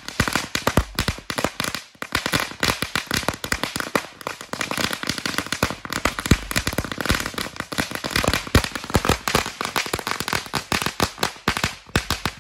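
Two Black Cat Cat Tails crackling whips (magic whips) burning together: a rapid, dense, very loud run of sharp crackles and pops, with a short lull about two seconds in.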